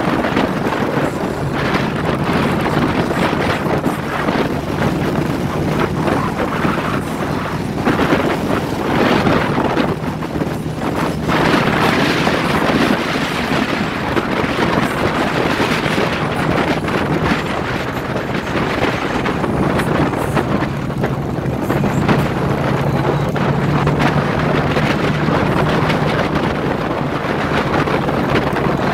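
Motorcycles cruising in a group, their engines running with a steady low hum, heavily mixed with wind rushing over the microphone of a moving bike.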